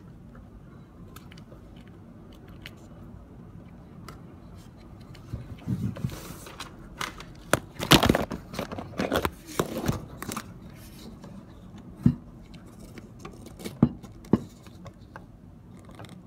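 Handling noise from a small plastic toy helicopter and the phone filming it: a flurry of clicks, scrapes and rubbing in the middle, then a few single sharp clicks near the end. The rotor is not running.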